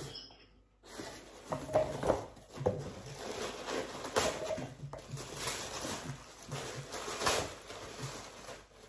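Irregular rustling and crinkling of paper as a present is unwrapped, with a run of small crackles and taps.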